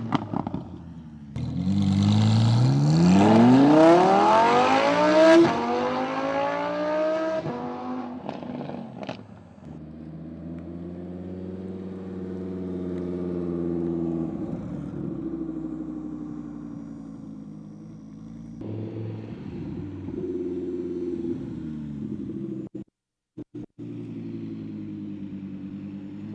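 Audi R8's 5.2-litre V10 exhaust: a hard rev that climbs for about four seconds and falls away, then settles into steadier low running with gentle rises and falls in pitch. The sound cuts out briefly a few times near the end.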